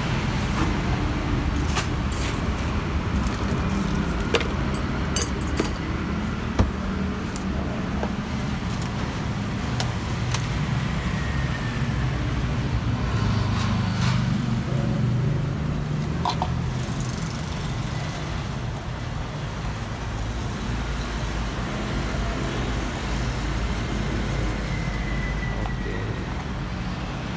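Steady low rumble of passing road traffic, with a few sharp clicks and knocks from cups and a spoon being handled.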